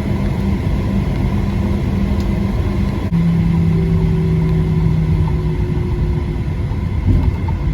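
Steady low rumble of a parked Boeing 737-700's cabin, with an air-system hum. About three seconds in, the hum shifts to a steadier, lower tone that fades out again near six seconds.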